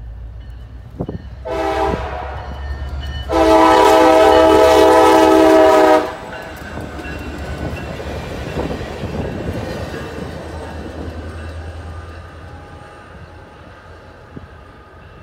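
Diesel locomotive horn on CSX GP40WH-2 #9969, sounded as a short blast and then a long blast of about three seconds, followed by the geometry train running past and fading away.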